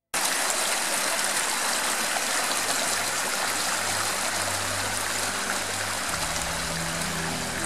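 Small spring-fed stream running steadily down a shallow channel over little cascades. Faint music comes in over the water about three-quarters of the way through.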